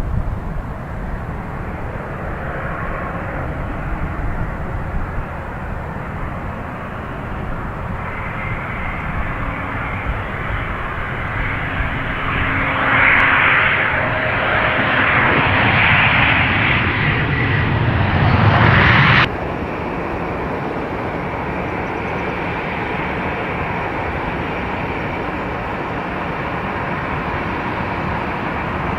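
Airliner engines, growing louder to a loud, rushing peak that stops abruptly about two-thirds of the way through, followed by a steadier, quieter engine sound.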